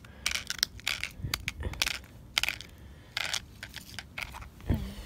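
Handling noise from an iPod Touch 2nd gen with a loose screen assembly being picked up off rough stone ground: a string of small clicks and gritty scrapes.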